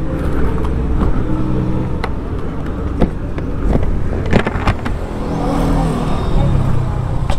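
Kawasaki Z1000R's inline-four engine running at low revs through its stock exhaust, with a few sharp clicks about three and four seconds in.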